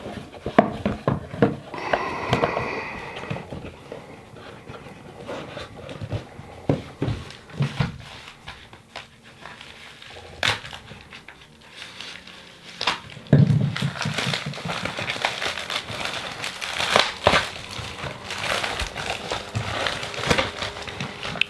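Packaging crinkling and rustling as a shipping box is unpacked by hand, with scattered small clicks and knocks from handling. A brief squeak comes about two seconds in, and a duller knock just past halfway.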